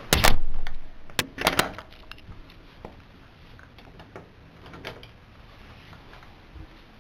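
A few loud clunks and thuds of something being handled or shut, the loudest right at the start, then two more sharp hits over the next second and a half, followed by faint scattered clicks.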